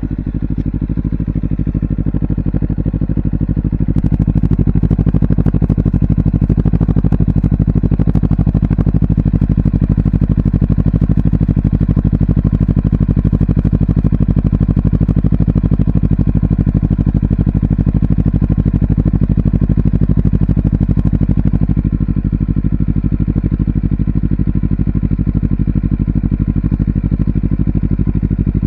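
Honda CBR250RR parallel-twin engine idling steadily through a WR'S SS-OVAL slip-on silencer, just after being started. The idle grows a little louder over the first few seconds, then holds even.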